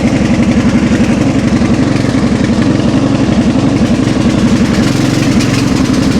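Riding lawnmower engine running steadily at a constant speed, its rapid firing pulses loud and even.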